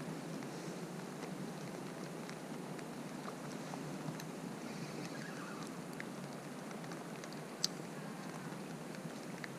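Rain falling steadily in a light patter, with one sharp click near the end.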